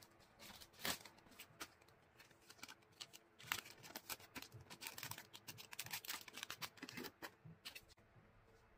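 Clear plastic packaging crinkling and rustling as it is handled, in quick irregular crackles that stop near the end.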